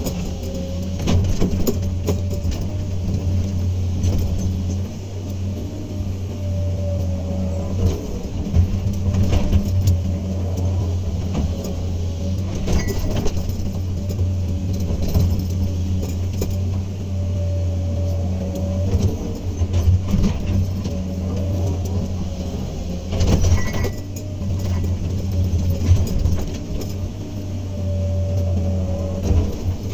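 Komatsu PC200 excavator running steadily while it works, with a pump whine that rises and falls every few seconds as the machine cycles. Scattered knocks and metallic rattles come through the running.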